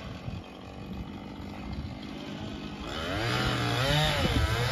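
Chainsaw running, starting loud about three seconds in and revving up and down repeatedly as it cuts storm-damaged trees.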